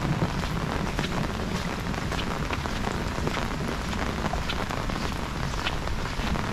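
Heavy rain falling steadily, with the sharp taps of individual drops striking close by.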